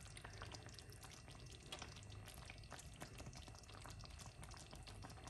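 Faint bubbling of chicken-and-dumpling broth simmering in the pan: many small pops and ticks over a low steady hum.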